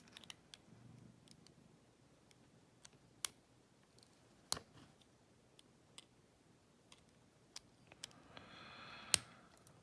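Sparse small clicks and taps from an Abus Buffo euro-profile lock cylinder being handled while a part is worked loose to take it apart, about one click a second.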